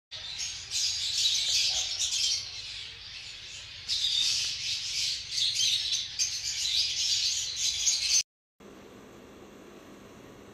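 A pair of blue lovebirds chattering and chirping in busy, overlapping bursts. They cut off abruptly just after eight seconds, and after a brief gap a steady hiss with a faint low hum takes over.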